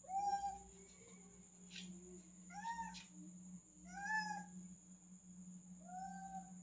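Domestic cat meowing four times, short meows that rise and fall in pitch, spaced about a second and a half apart. The cat is calling while afraid to jump down from a high ledge.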